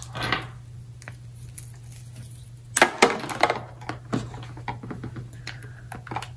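Small clicks and clatter of a FireWire cable being handled and its connector fitted into a 2nd-generation iPod's FireWire port, with the thickest run of clicks about three seconds in.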